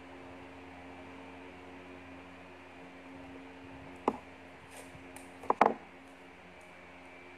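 A fabric garment being shaken out with a few sharp snaps and a little rustling: one snap about four seconds in, then two close together about a second and a half later. Under it runs a steady low hum.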